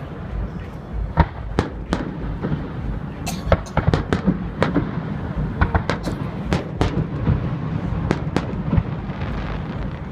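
Fireworks display going off: a rapid, irregular series of sharp bangs and crackles, clustering about three to four seconds in and again around six to seven seconds, over a steady low rumble.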